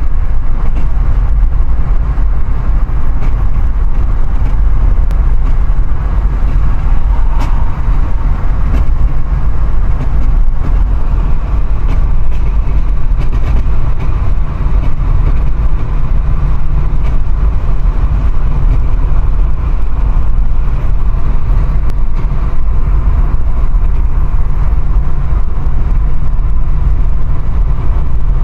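Car making a loud, steady low rumble, the abnormal noise its owner is recording, with a couple of faint ticks about eight seconds in.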